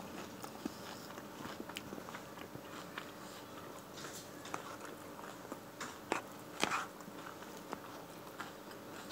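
Close-up mouth sounds of someone biting and chewing a lettuce salad: small wet clicks and crisp crunches, with a few louder crunches about six to seven seconds in.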